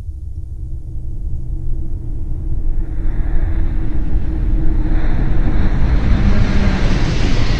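Layered sci-fi spaceship sound-design mix: a deep spaceship-engine rumble that swells steadily louder, with a rising hiss building over it.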